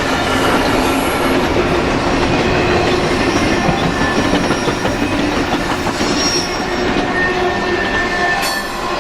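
Freight train cars rolling past, their steel wheels rumbling and clattering on the rails with thin, high squealing tones over the noise.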